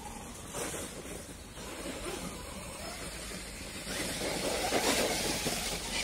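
Kyosho Mad Force VE electric RC monster truck driving over grass and wet leaves, its tyre and motor noise growing louder about four seconds in as it comes closer.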